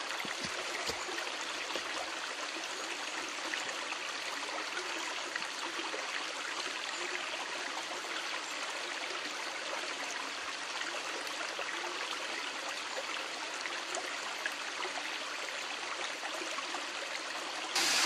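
Shallow woodland stream running over rocks and stones, a steady rushing trickle. Just before the end it switches abruptly to the louder, hissier rush of a small waterfall.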